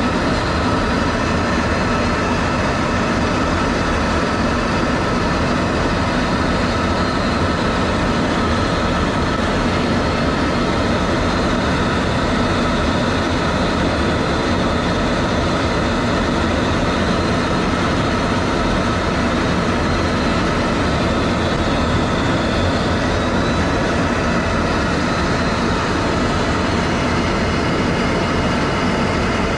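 Steady, unchanging machinery noise with a faint high whine running through it.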